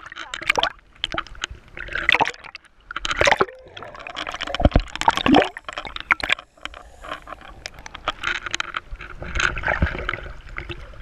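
Sea waves sloshing and splashing against a waterproof action camera at the water line, gurgling as the water washes over the lens in irregular surges.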